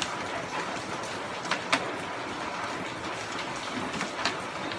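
Sheets of paper rustling as they are handled, with two short sharp crackles about a second and a half in and another near the end, over a steady hiss.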